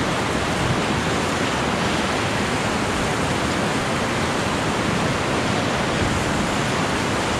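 Whitewater rapids rushing around a raft: a steady, unbroken wash of churning water.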